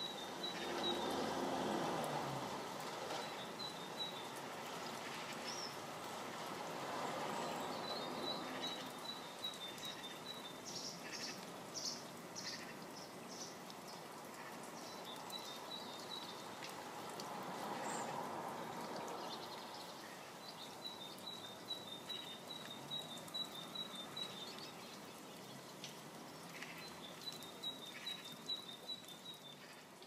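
A small bird calling in several quick runs of short, high, evenly spaced notes. Behind it is a steady hiss of rain that swells and fades a few times.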